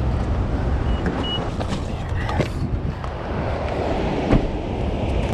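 Steady outdoor rush with wind buffeting the microphone and the roar of water pouring through the dam's open spillway gates, with a couple of faint footstep clicks on gravel.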